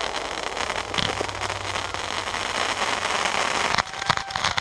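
Aerial fireworks display: a dense crackling fills the air, with sharp bangs about a second in and several more in quick succession near the end.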